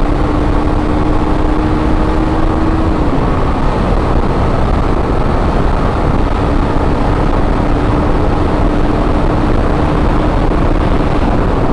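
Wind rushing over the microphone on a sport motorcycle cruising at highway speed, under a steady engine hum at one pitch that fades about three seconds in and comes back about halfway through.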